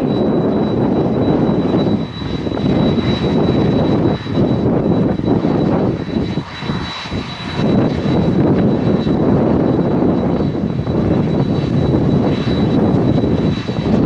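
Jet airliner taxiing close by on idle engines: a steady high whine over a heavy rush of engine noise. Gusty wind buffets the microphone and makes the rush drop out briefly several times.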